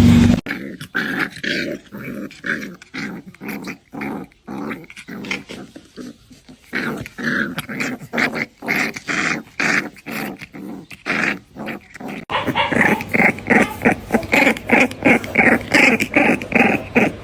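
A puppy growling in quick, short repeated bursts. About twelve seconds in, the sound changes abruptly and the growling becomes louder.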